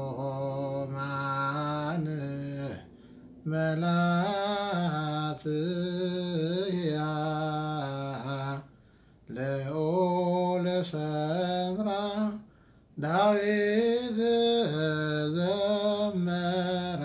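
A solo male voice chanting an Ethiopian Orthodox Ge'ez hymn (zema) unaccompanied, in long held notes with small ornaments, pausing briefly three times for breath.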